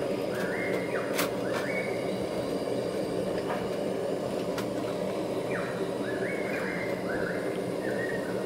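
Small portable camping stove burner running with a steady, even rushing noise. Groups of short rising chirps come and go above it, once near the start and again in the second half.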